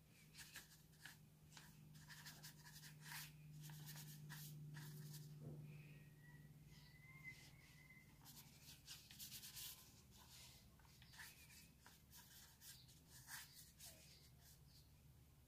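Faint, irregular scratchy strokes of a paintbrush dabbing and dragging acrylic paint across sketchbook paper, over a low steady hum.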